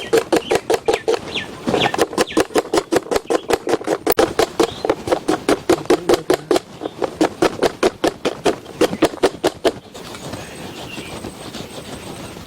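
A knife chopping vegetables on a cutting board in quick, steady strokes, about four to five a second. The chopping stops about ten seconds in.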